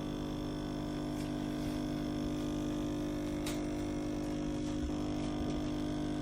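Steady machine hum made of several unchanging tones, starting abruptly at a cut, with a single short tick about three and a half seconds in.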